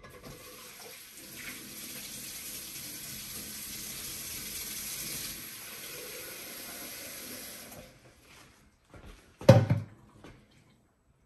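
Water running from a kitchen tap for about eight seconds, then turned off, as water is added to the juice. A single loud knock follows about a second and a half later.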